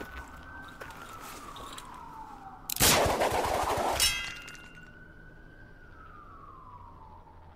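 A police siren wailing, its pitch slowly rising and falling. A little under three seconds in comes a loud burst of noise lasting about a second and a half, ending in a brief ringing.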